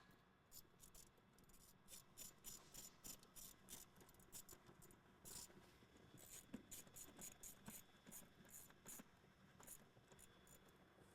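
Faint, irregular small clicks and scratches of hand work on the intake parts and hose clamps, over near-silent room tone.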